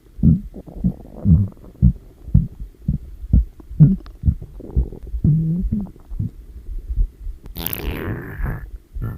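Stomach growling: a quick run of short, low gurgles and rumbles, about two a second. Near the end comes a longer, higher gurgle that falls in pitch.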